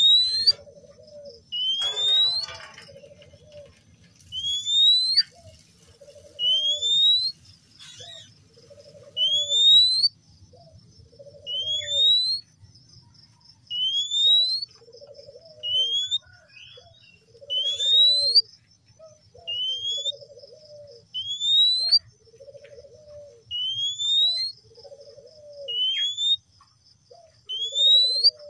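Male Oriental magpie-robin calling over and over: a short, loud rising whistle paired with a low, buzzy note, repeated about every one and a half to two seconds.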